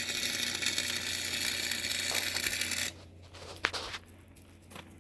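Electric arc welding: a steady crackling, frying hiss from the welding arc that stops abruptly about three seconds in, followed by a single sharp tap.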